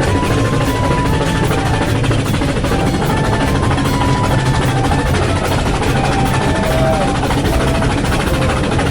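Background music: a melody of short held notes over a steady percussion bed.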